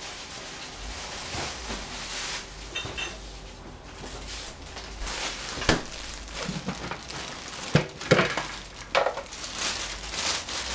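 Kitchen handling sounds of a plastic salad spinner being taken apart and its basket set down in a stainless steel sink. Quiet rustling at first, then several sharp knocks and clatters in the second half.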